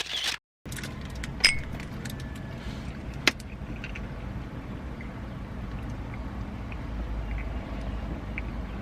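Car driving, heard from inside the cabin: a steady low road and engine rumble, with a couple of sharp clicks in the first few seconds.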